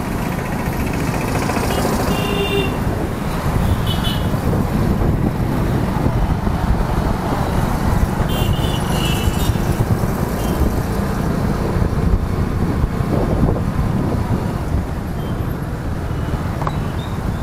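Motorcycle riding through city traffic: a steady low rumble of engine and road noise, with a few short high beeps from the traffic around it, near 2, 4 and 9 seconds in.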